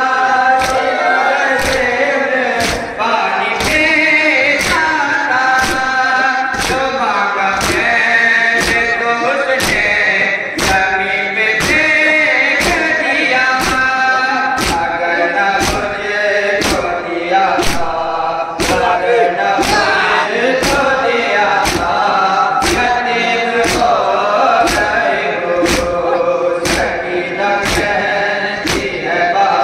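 Men chanting a noha, a Shia lament, in chorus, with a sharp beat about once a second in time with the chant, typical of matam (rhythmic chest-beating by the mourners).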